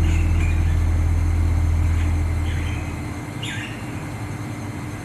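A low sustained tone fading out over the first three seconds over a steady rumbling hum, with a few short chirping bird calls, about three of them.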